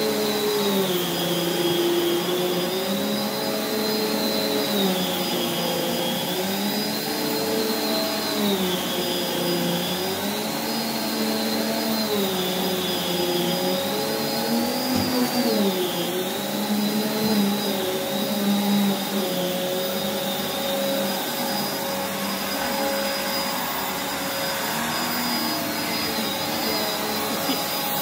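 Prolux X8 Elite backpack vacuum running with its EBK360 power nozzle on carpet. A steady motor whine over rushing air, its pitch dipping and rising every three to four seconds as the nozzle is worked back and forth.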